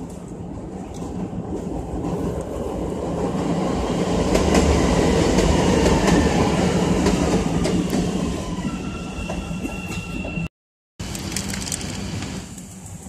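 A large vehicle passing close by: a rumble that swells to a peak about halfway through and then fades, with a steady high squeal near the end.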